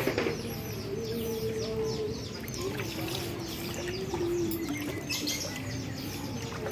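Birds chirping busily: a rapid run of short, falling chirps, about five a second, over a steady wash of background noise. A sharp knock sounds right at the start.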